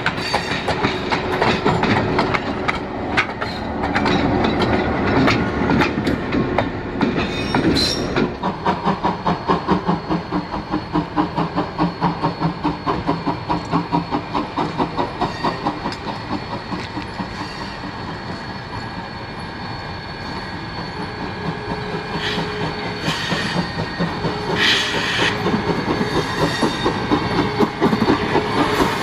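Railroad cars clacking over rail joints as a train rolls past. Then Viscose No. 6, a small 0-4-0 saddle-tank steam locomotive, chuffs evenly at about four beats a second as it approaches and passes, with two short bursts of steam hiss near the end.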